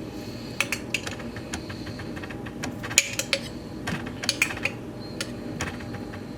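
Irregular light clicks and clinks of kitchen utensils and containers handled at a counter, probably while salsa is added to a plate of nachos.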